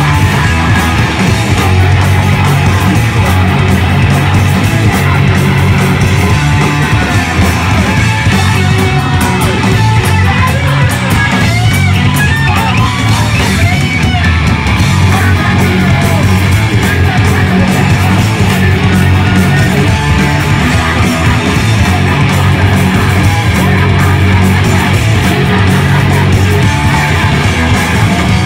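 Hard punk band playing live at full volume: distorted electric guitar, bass and pounding drums without a break, with a singer shouting over it.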